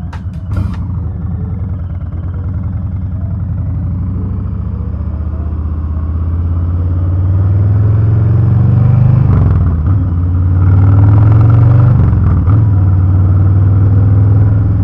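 Harley-Davidson Low Rider S Milwaukee-Eight 114 V-twin running through a freshly fitted TBR Turnout 2-into-1 exhaust, with a deep, throaty rumble. It grows louder as the bike pulls away, with two short dips in pitch late on, like gear changes.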